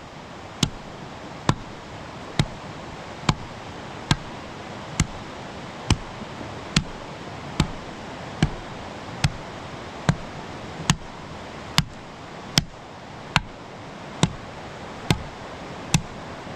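Sharp knocks repeating at an even pace, a little more than one a second, over a steady background hiss.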